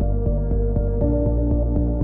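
Background music with a steady beat of about four ticks a second over held chords; the chord changes about a second in.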